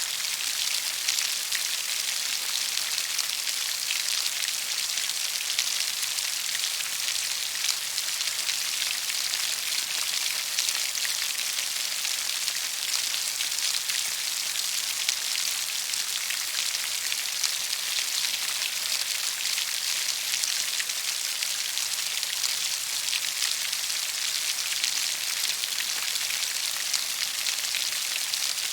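Steady rainfall with dense patter of individual drops, an even hiss without pauses or thunder.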